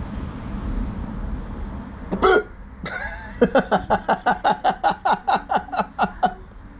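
A loud hiccup about two seconds in, then a fast run of short vocal sounds, each falling in pitch, about six a second for roughly three seconds. A low rumble runs underneath before the hiccup.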